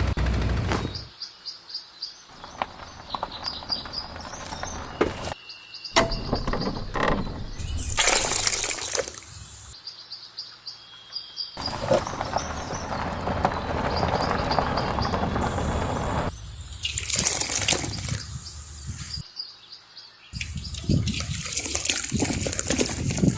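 A string of short clips of water splashing and pouring, with a few sharp knocks and birds chirping in the background.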